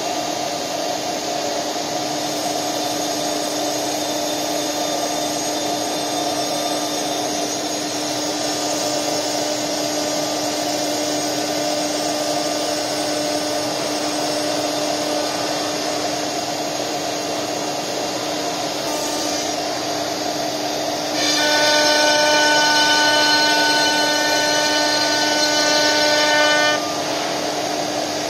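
ATC CNC router spindle running steadily with a constant whine while its engraving bit cuts letters into a wooden board. About three-quarters of the way through, a louder, higher whine made of several steady tones joins for some five seconds, then drops away.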